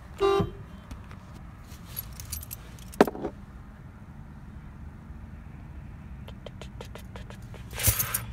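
Car keys jangling and clicking, with one sharp click about three seconds in and a quick run of clicks near the end, over a low steady hum.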